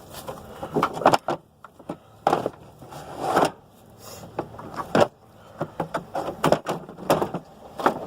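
A car battery being set into its tray in the engine bay: a run of irregular clunks, knocks and scrapes as the battery is lowered and shifted into place.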